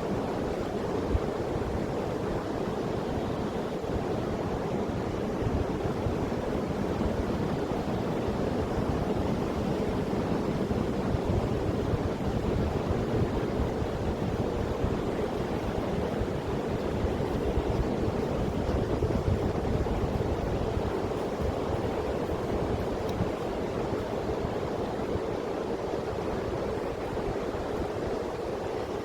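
Sea surf washing steadily onto the beach, with some wind rumble on the microphone.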